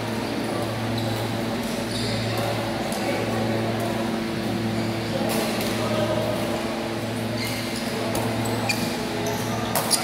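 Badminton hall ambience: a steady low hum, players' voices, and a few sharp clicks of rackets hitting shuttlecocks, one about five seconds in and a couple near the end.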